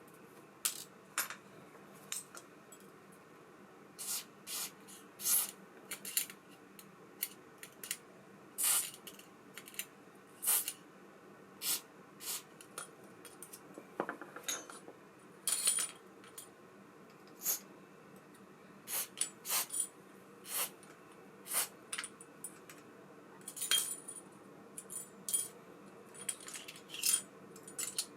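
Small metal reel parts and tools clicking and clinking irregularly on a hard work surface, about one light knock a second at uneven spacing, over a faint steady hum.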